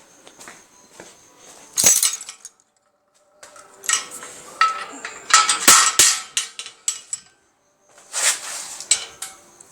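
Metallic clinking and clattering of hard objects being handled, in several short bursts with brief silent gaps between them.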